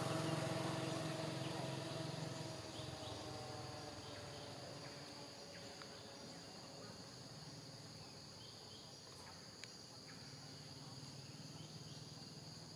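A steady insect chorus, several high-pitched even tones held throughout. A motor engine is fading away over the first few seconds.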